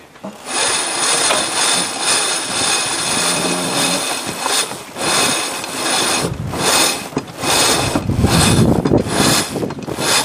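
Sailboat deck winches ratcheting as the crew grind in a sheet, a continuous fast clatter of the pawls. From about six seconds in it pulses in a rhythm of about two to three strokes a second.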